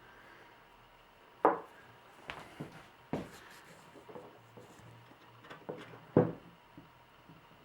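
Hard plastic knocking and rubbing as the top-box lid and its broken hinge piece are handled and pressed back together; a few sharp knocks, the loudest about a second and a half in and again about six seconds in.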